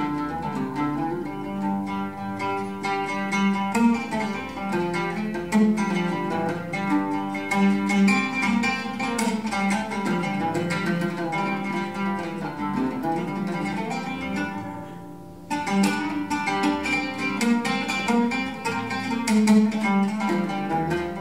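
Oud plucked in a busy stream of notes, in a live duet with acoustic grand piano. The playing thins out briefly about three-quarters of the way through, then picks up again.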